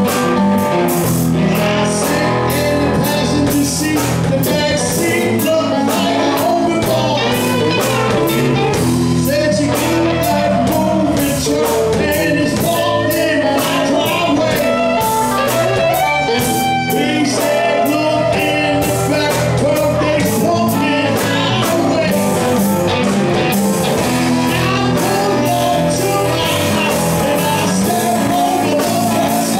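Live blues-rock band playing: a man singing over electric and acoustic guitars, with a drum kit keeping a steady beat.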